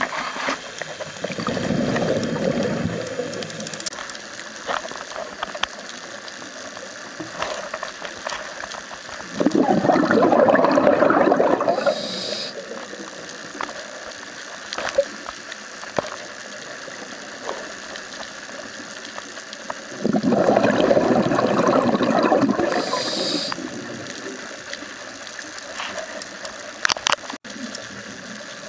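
Scuba diver breathing through a regulator underwater: three bursts of exhaled bubbles about ten seconds apart, the later two each followed by a short high hiss. A steady faint crackle of clicks runs underneath.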